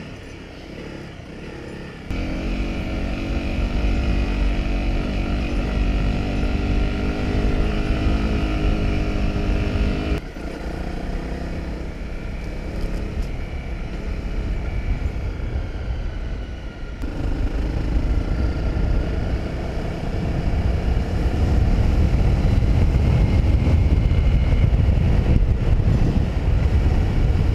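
Honda CRF250L dual-sport motorcycle's single-cylinder engine running under way on a dirt track, mixed with a heavy low rumble that grows louder over the last several seconds. The sound changes abruptly about 2, 10 and 17 seconds in, where the footage is cut.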